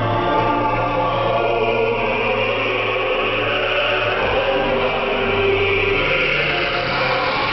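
Choir singing, heard as a shortwave radio broadcast: a narrow, band-limited sound with the treble cut off.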